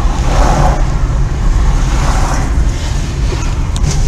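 Steady road and engine noise of a moving car, picked up by a dashcam inside the cabin, with a heavy low rumble.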